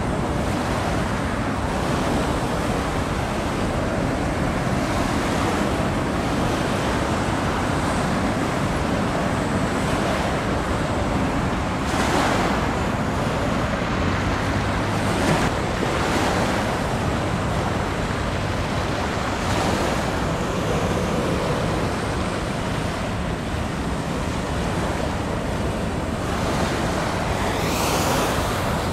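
Choppy sea water splashing and wind blowing over the microphone, a steady rushing noise with a few brief louder surges.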